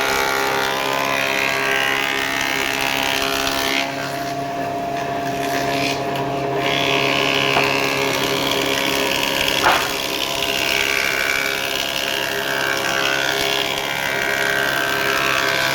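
A woodworking power tool's motor running steadily with a constant hum, with a rougher noise above it that rises and falls as it works.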